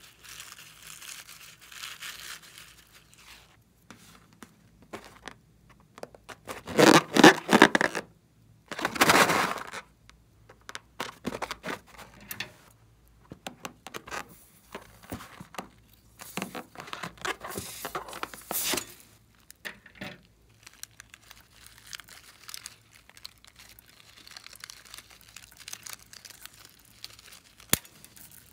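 Slime-filled rubber balloons being handled, peeled and cut open with scissors: bursts of close-up rubbing and tearing rubber noise, the two loudest a couple of seconds apart about a quarter of the way in, with a sharp click near the end.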